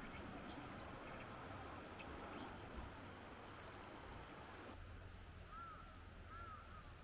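Shallow river running over stones, with a few short bird chirps; about three-quarters of the way in it cuts to quieter outdoor ambience where a bird calls repeatedly, a short rising-and-falling note about once a second.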